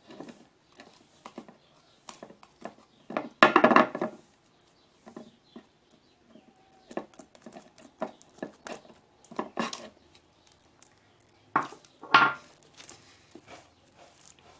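Homemade slime being worked and pulled loose from its plastic pot: a string of sticky clicks and scrapes, with two louder bursts, one a few seconds in and one near the end.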